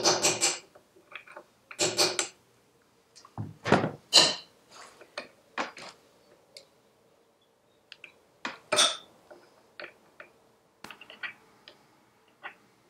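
Hammer blows on a steel drift, knocking a wheel bearing out of a BSA Bantam rear hub: several sharp, ringing metal strikes in the first few seconds, the loudest a little after four seconds in. Lighter metal clinks and clicks follow as loose parts are worked out of the hub.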